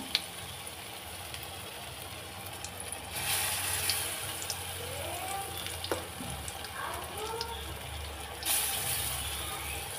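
Batter-coated brinjal slices sizzling in hot oil in a wok. The steady sizzle swells about three seconds in and again near the end as fresh battered pieces are slipped into the oil.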